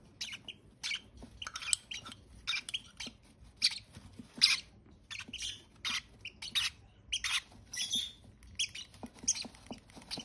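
Baby parrots begging for food with short, high-pitched cheeps, about two a second, as a chick is spoon-fed formula.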